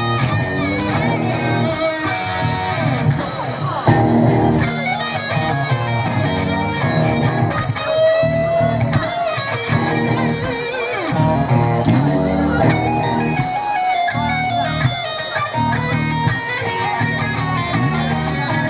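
Live rock band playing, electric guitar to the fore over bass guitar and a drum kit with a steady cymbal beat; some guitar notes are bent and held.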